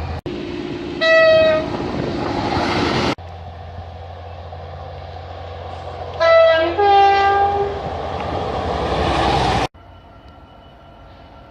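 Train horns sounded over the rumble of passing trains, in separate cut-together clips: a single short horn note about a second in, then later a two-tone horn giving a short lower note followed straight away by a higher one. Near the end it cuts to a quieter scene with a steady hum.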